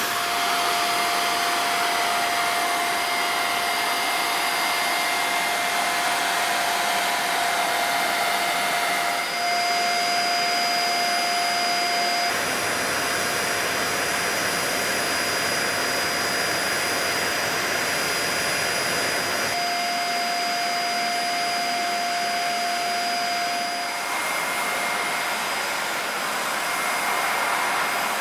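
Dyson Small Ball upright vacuum cleaner running: a steady rush of air with a high whine over it. The sound changes abruptly several times, and the whine drops out and returns.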